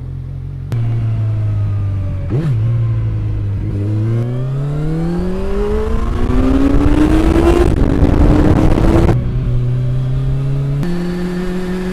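Kawasaki inline-four motorcycle engine, breathing through a LeoVince LV One Evo slip-on exhaust with the baffle removed, idling on a cold start. It gives a quick throttle blip, then a long rev climbing steadily in pitch for about five seconds before dropping back to idle.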